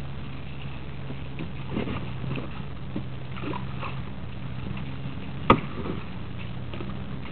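Wooden boat moving through still water: a steady low hum under scattered faint knocks and splashes, with one sharp knock about five and a half seconds in.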